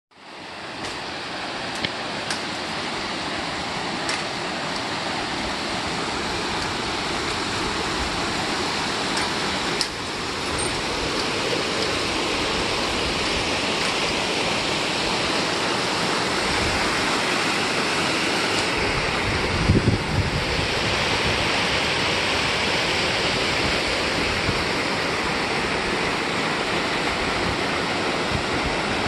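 River rapids rushing over rock ledges and boulders, a steady full hiss of moving water that fades in at the start. A few short clicks and a brief cluster of low knocks about twenty seconds in sound over it.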